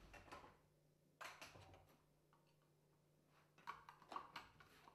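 Near silence with faint clicks and light taps of a screwdriver and other small items being handled on a tabletop, in a few short clusters near the start, about a second in, and near the end, over a faint steady low hum.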